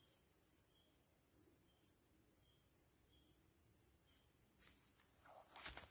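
Near silence with crickets trilling faintly in one steady high note, and a faint rustle near the end.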